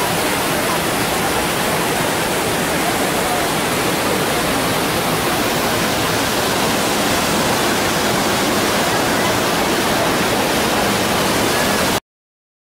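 Steady rush of falling water from waterfalls cascading down rockwork. It cuts off suddenly near the end.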